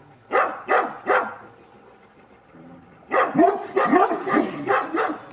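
Šarplaninac barking: three barks about a second in, then after a pause a fast run of barks near the end. The dog is switching on in reaction to a slight provocation from a person during a courage test.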